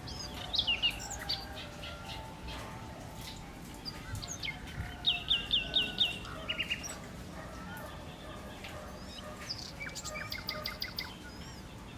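Songbirds chirping and singing in short bursts, including a quick run of five or six sharp, falling notes about five seconds in and another fast trill near the end, over a low steady background rumble.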